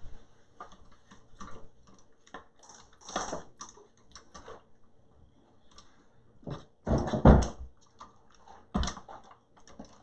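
Spatula scraping and knocking against a stainless steel stand-mixer bowl and its beater while the mixer is stopped: a run of irregular light clicks and taps, with louder knocks about three seconds in and again around seven and nine seconds.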